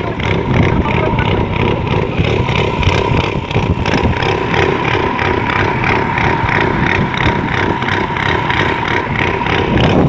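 Motor of a small wooden river boat running steadily under way, with a fast even beat and a steady whine.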